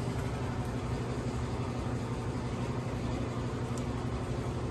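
Garage door opener running steadily: a constant motor hum with a low, even tone and a rumble.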